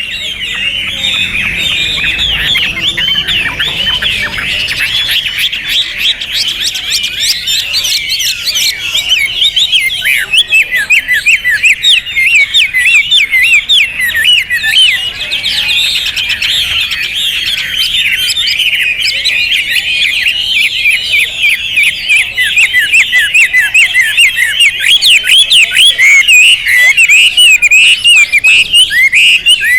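Chinese hwamei singing loudly: a non-stop, fast, varied warbling song of rapid whistled and chattering phrases.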